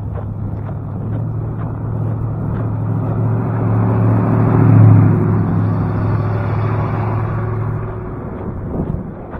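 A motor vehicle driving past, its engine hum growing louder to a peak about halfway through and then fading away, over footsteps crunching in snow.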